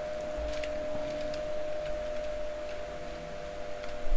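Scattered light clicks of a computer mouse and keyboard in use, over a steady faint electrical hum. A low bump comes about half a second in and again just before the end.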